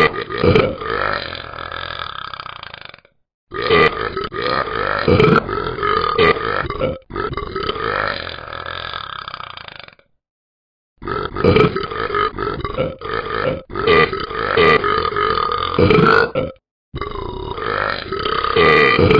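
A dog burping over and over, belch after belch. The sound cuts out suddenly three times, at about three seconds, about ten seconds and near the end.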